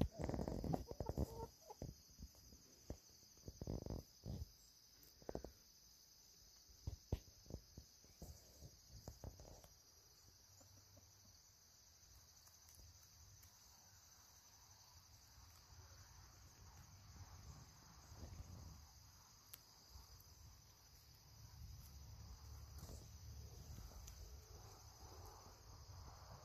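Faint steady chirping of crickets. A few short knocks and taps come in the first ten seconds, and a low rumble rises in the second half.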